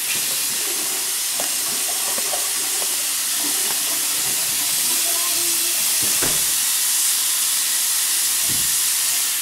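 Bathroom sink tap running steadily, with water splashing over hands being washed under it; the sound cuts off suddenly at the end.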